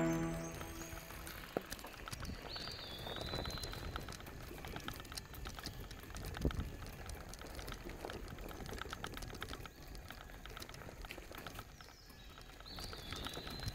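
Biktrix Stunner X e-bike's tyres crackling and crunching over a dirt and gravel trail strewn with dry leaves, as a dense run of small clicks and rattles.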